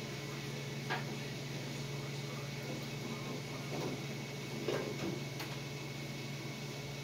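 A steady low hum with a few faint knocks and clicks: one about a second in, and a pair around five seconds in.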